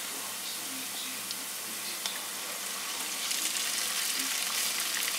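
Raw shrimp sizzling in olive oil in a frying pan, a steady crackling hiss with small pops that gets a little louder about three seconds in.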